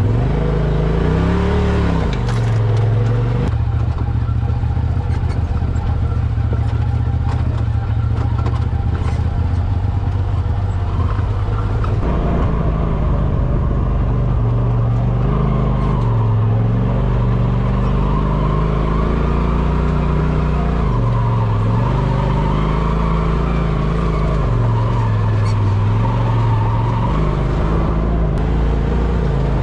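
A motor vehicle's engine running under way, its pitch rising and falling again and again as the throttle changes.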